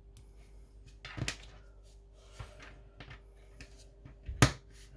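Plastic Lego pieces being handled and pressed together: a few short sharp clicks, the loudest near the end.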